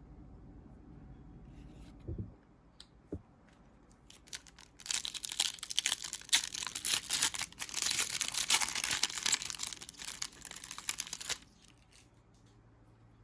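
A trading-card pack's plastic-foil wrapper being torn open and crinkled: several seconds of dense crackling and tearing. Before it, two soft knocks.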